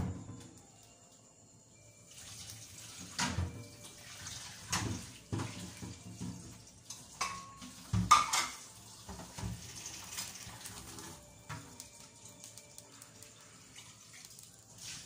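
Water running in a kitchen sink, with dishes and pots clattering. Sharp clanks come about three, five and eight seconds in, the one at eight the loudest. The running water fades after about eleven seconds.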